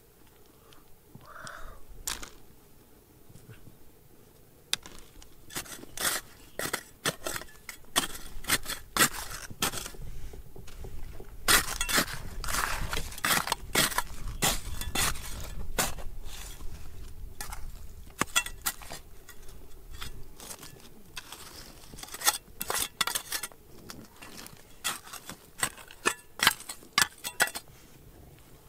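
Stones and metal clinking, knocking and scraping in quick, irregular strokes. The strokes come thickest in the middle stretch, over a low rumble.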